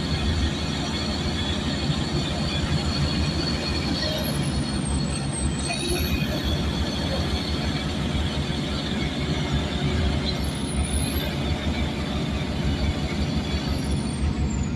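Heavy diesel earthmoving machinery, bulldozers and excavators, running steadily while working.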